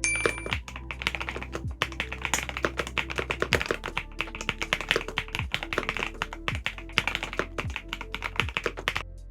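Rapid typing on an EPOMAKER Dynatab 75X mechanical keyboard: a dense run of keystroke clicks that stops about a second before the end.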